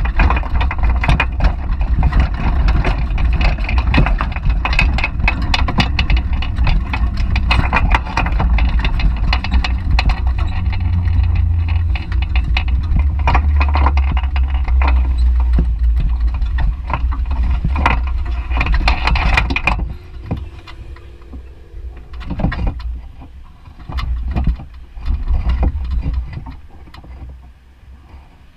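Wind buffeting the microphone of a GoPro mounted on a moving bicycle's basket, with a low rumble and many short rattles and clicks from the ride. About two-thirds of the way through it drops off sharply as the bike slows and stops, leaving quieter street noise with a few brief louder swells.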